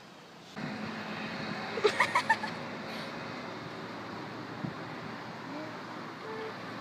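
Steady outdoor street and traffic noise, with a quick run of four short, loud, pitched sounds about two seconds in.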